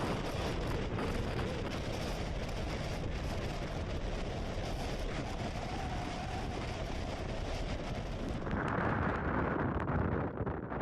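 Strong storm wind buffeting the microphone: a continuous heavy rumble with a rushing hiss over it, changing in character about three-quarters of the way through.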